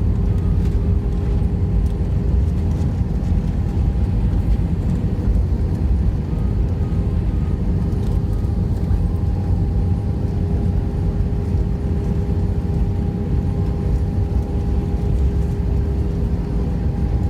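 Airbus A319 cabin noise on the ground after landing: a steady low rumble of the engines and airframe with an even hum on top.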